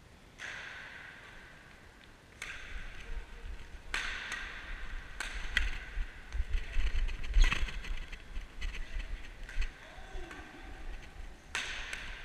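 Badminton rally: sharp cracks of rackets striking the shuttlecock every second or two, each ringing briefly in the echoing sports hall.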